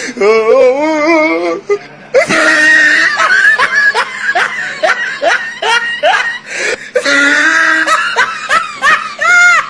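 People laughing hard: belly laughs and high-pitched cackling in quick, repeated, overlapping bursts.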